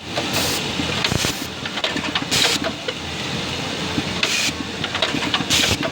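NISSIN NS-9815S-509CD fully automatic rivet and button attaching machine running: steady mechanical clatter with many sharp clicks, and five short hisses about every one to two seconds.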